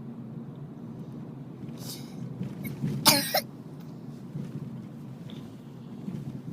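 A young child coughs once, sharply, about three seconds in, with a softer breathy sound just before it.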